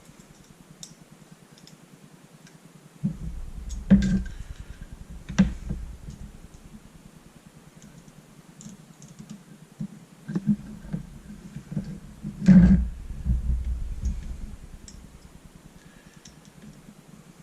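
Scattered clicks and knocks of metal parts of a Spyder Victor 2 paintball marker being handled during disassembly, with low rumbling handling noise. The sharpest knocks come about four, five and a half and twelve and a half seconds in.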